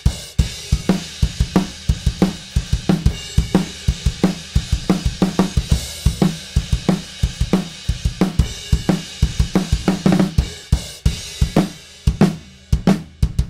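Recorded acoustic drum kit playing back in a steady groove: kick, snare, hi-hats and cymbals. The snare hits are doubled by a sampled, low-tuned DW Collector Series 14x7 snare triggered from MIDI.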